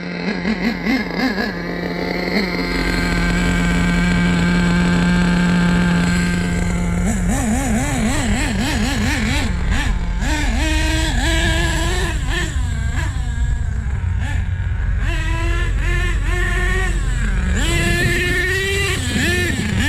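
Nitro engine of an HPI Savage RC truck running at high, steady revs for about seven seconds, then revving up and down in quick, wavering surges on and off the throttle.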